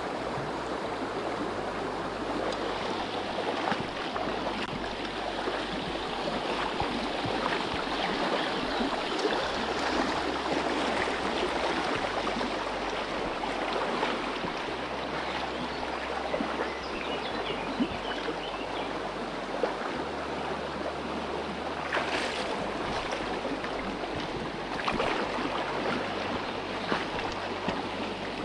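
Small river flowing fast, a steady rushing of water, with a couple of brief sharp knocks or taps near the end.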